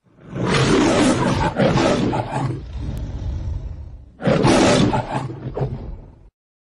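The MGM logo's lion roar, played back pitched up: the lion roars twice, the first roar starting right away and trailing off, the second about four seconds in, cut off abruptly.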